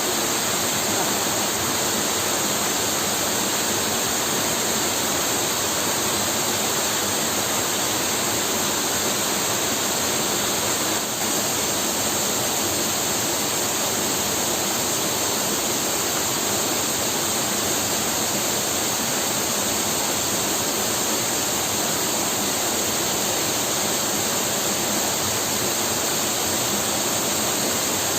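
Waterfall's falling water rushing steadily, an even noise that holds level throughout.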